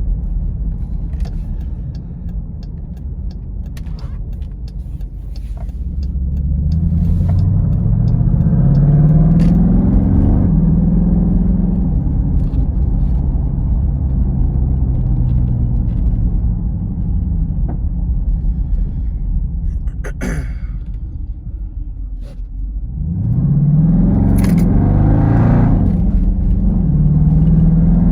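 Dodge Durango SRT 392's 6.4-litre HEMI V8 pulling under acceleration, its note climbing in steps as it shifts up through the gears. It then holds a steady cruise, eases off about twenty seconds in, and climbs through the gears again near the end.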